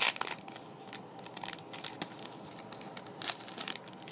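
A trading-card booster pack wrapper torn open with a sharp rip at the start, followed by crinkling of the wrapper and rustling as the stack of cards is slid out, a few louder crinkles about three seconds in.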